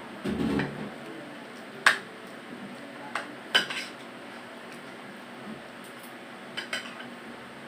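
Metal spoon clinking against a ceramic bowl of rice during a meal. It gives a handful of scattered sharp clinks, the loudest about two seconds in and three and a half seconds in, with a pair more near the end.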